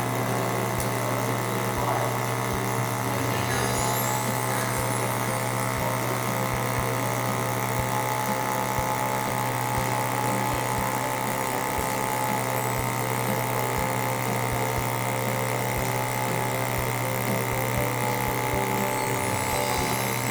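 MIG welding arc running steadily: a continuous buzz with a fine crackle, which cuts off suddenly at the end as the arc is stopped.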